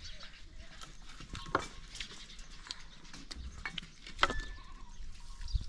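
Dry branches knocking against each other and the stone hearth as firewood is laid in: a sharp knock about one and a half seconds in and a louder one a little past four seconds, with light clatter between.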